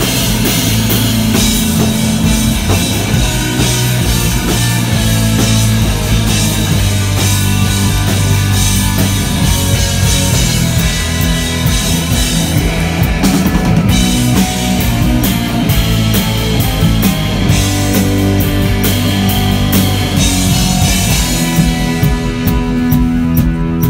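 Live psychedelic rock band playing loud: electric guitar, bass and a full drum kit.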